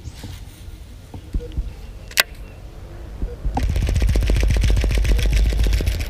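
Baitcasting reel cranked fast, a rapid run of clicks over handling rumble that starts about three and a half seconds in. A single sharp click comes a little after two seconds in.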